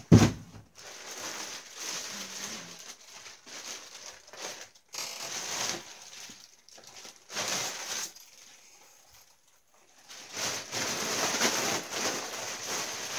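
Plastic bag and bubble wrap rustling and crinkling in irregular bursts as they are handled, with a loud knock right at the start. The crinkling thins out for a couple of seconds past the middle, then grows busier near the end.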